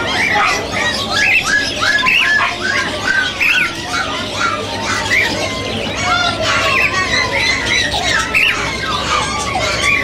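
Caged birds calling at a bird market: a dense run of short, rising squawks, several a second, thinning briefly in the middle.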